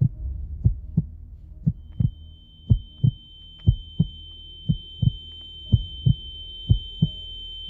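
Heartbeat sound effect: a slow double thump, lub-dub, about once a second. A steady high-pitched ringing tone comes in about two seconds in and holds.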